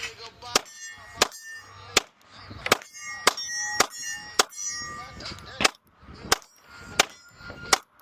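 9mm Glock 19 pistol fired at a steady pace, about a dozen shots a little over half a second apart. Steel targets clang and ring after the hits.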